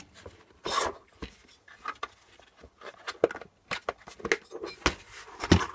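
Plastic cover of a diesel parking heater being handled and pressed onto its clips: a scattered series of short clicks and knocks, the loudest near the end.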